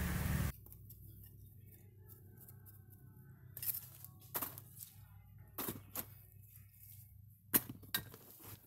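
A stick scraping and pushing loose soil around tree roots for about half a second, cut off abruptly. After that comes a faint background hum with a few scattered sharp clicks.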